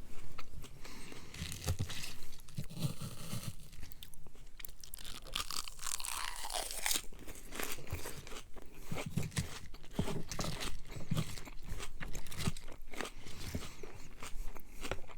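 Close-miked chewing of a soft macaroni and meat-sauce casserole, with repeated wet mouth clicks and smacks.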